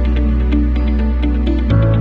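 Background music in a soft new-age style, with held bass chords and a steady light beat. The bass chord changes near the end.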